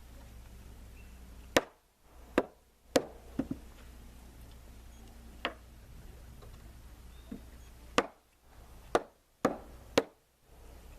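Sharp knocks and taps, about ten at irregular spacing, some in quick pairs.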